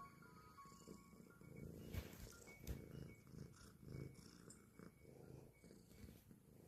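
Domestic cat purring faintly, a low rumble that swells and eases with each breath.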